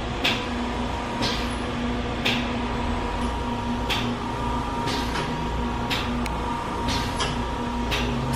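Body-contouring treatment machine running during a buttock-tightening session: a steady electrical hum with a sharp click about once a second.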